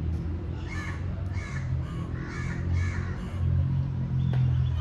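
A crow cawing four times in a row, over a steady low hum.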